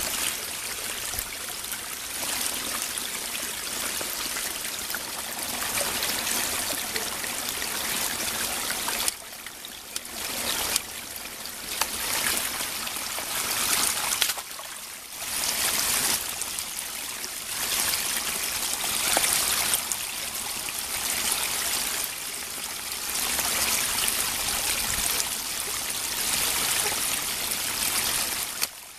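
Small stream running over a little cascade: a steady trickling rush of water, dropping briefly in level a few times about ten and fifteen seconds in.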